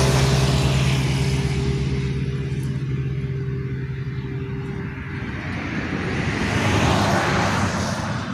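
Steady engine hum that fades away about five seconds in, with a rushing noise that swells at the start and again near the end, like motor vehicles passing.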